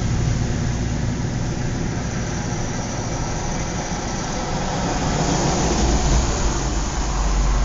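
Suburban outdoor ambience: a steady low rumble of road traffic. The traffic noise swells in the second half.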